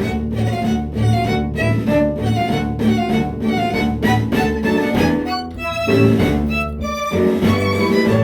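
Instrumental ensemble music without singing: a steady run of short melodic notes over a sustained low part.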